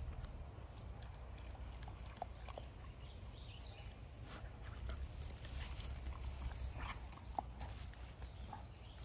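Golden retriever puppy moving about: scattered soft clicks and scuffs over a steady low rumble.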